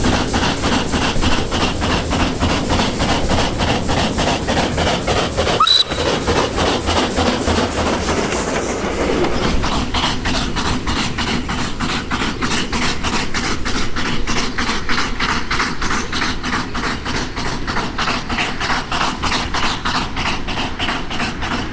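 Coffee Pot steam railcar (Steam Motor Coach No.1) working uphill under steam, its exhaust beating in a fast, even rhythm, with a short break about six seconds in.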